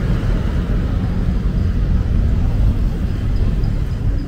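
Steady low rumble with a noisy haze over it, holding level throughout.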